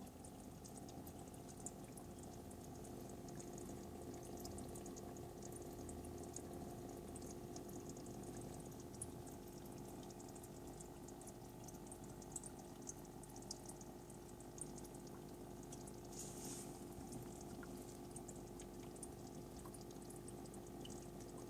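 Aquarium equipment humming steadily under water bubbling and trickling, with scattered small pops and splashes.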